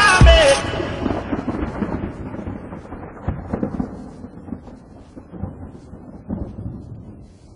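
The riddim's beat cuts off under a second in, leaving a thunderstorm sound effect, rumbling thunder and rain with a few cracks, that fades slowly away.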